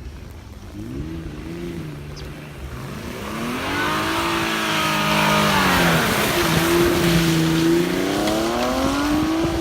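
Car engine revving in the snow: its note climbs, drops about six seconds in, then climbs again, getting louder overall. A hiss of tyres spinning on snow rides over the first climb.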